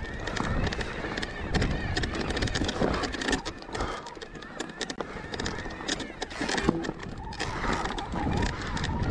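Electric mountain bike being ridden up a rocky trail: a steady clatter of knocks and rattles as tyres, chain and frame bounce over stones.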